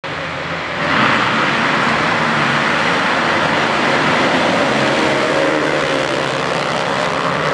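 A pack of motocross bikes revving hard and accelerating away from the start line together, the engine noise jumping louder about a second in and staying loud.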